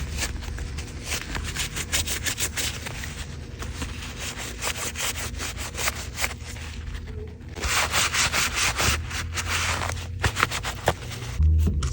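Rapid scrubbing strokes rubbing over a dirty phone case as it is deep-cleaned, turning into a denser, continuous scrub about two thirds of the way through.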